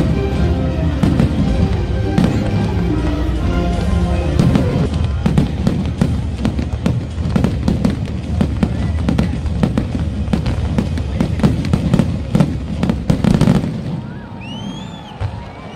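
Fireworks display: a dense run of bangs and crackles from bursting shells, with music over the first few seconds. Near the end it quietens to a few short rising-and-falling whistles.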